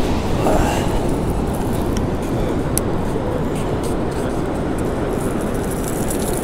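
Steady, low rush of ocean surf washing on a sandy beach.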